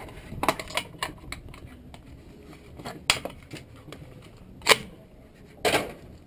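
Tools and the metal parts of a water heater control box clicking and knocking as it is handled for disassembly. There is a quick cluster of clicks about half a second in, a sharp knock around three seconds, the loudest knock near five seconds, and a slightly longer clatter near the end.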